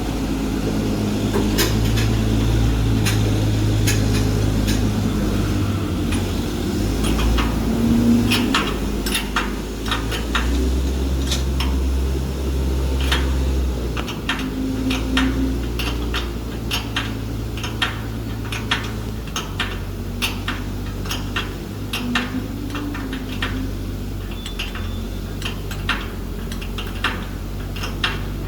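Irregular sharp metallic clicks and taps of hand tools working the adjusting screws of a band saw cutting machine, growing more frequent about a third of the way in, over a steady low machine hum.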